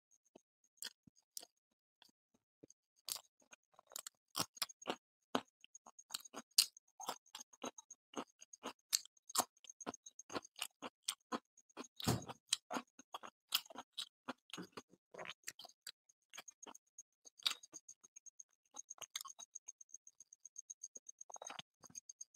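Eating sounds: irregular soft clicks and smacks of chewing with the mouth and fingers tearing luchi, puffed fried bread, with a stronger crackle about halfway through.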